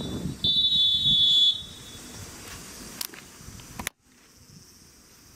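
Referee's whistle blown in one long steady blast of about a second. It is the final long note of a short-short-long whistle signal that ends the match.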